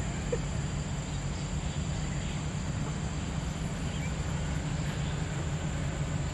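Steady low outdoor background hum with a faint, steady high-pitched whine, and a few faint chirps; no club strike.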